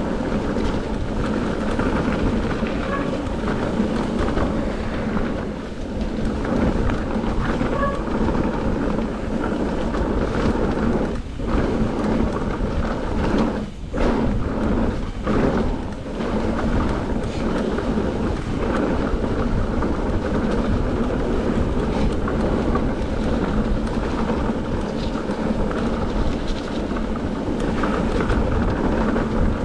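Mountain bike descending a gravel trail at speed: steady rumble of tyres on gravel and wind buffeting an action camera's microphone, briefly easing twice around the middle.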